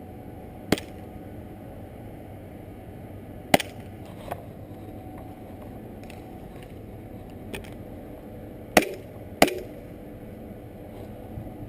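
Airsoft gun shots: a handful of sharp single cracks at irregular intervals, two of the loudest close together near the end, over a steady background hiss.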